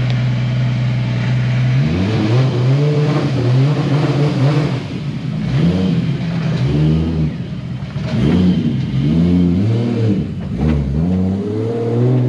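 Nissan 180SX's 1JZ straight-six engine idling steadily, then revved hard up and down several times in quick succession from about two seconds in.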